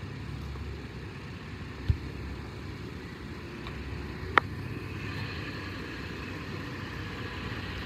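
Toyota 4Runner SUV running with a steady low engine hum as it creeps backwards, with two short clicks, about two and four and a half seconds in.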